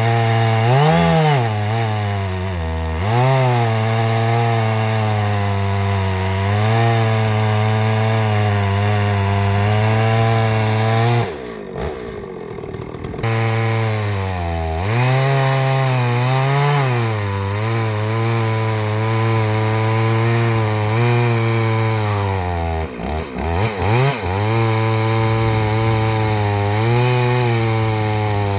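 Large two-stroke chainsaw, a clone of a Stihl 066, running near full throttle as it rips a slab from an ash log in an Alaskan chainsaw mill. Its note sags and recovers under load, with a brief drop off the throttle about twelve seconds in and a wavering dip about two-thirds through. The slow going is down to ash being very hard wood.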